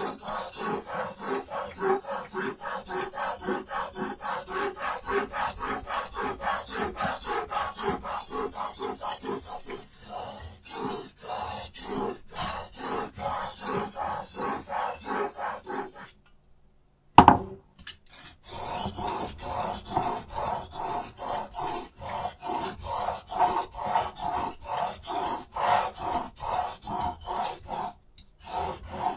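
Diamond sharpening stone on a Hapstone T1 guided-angle sharpener stroked rapidly back and forth along a steel knife blade, a raspy scraping at about three strokes a second while the edge bevel is ground. The strokes stop for about a second past the middle, broken by a single sharp clack, then resume.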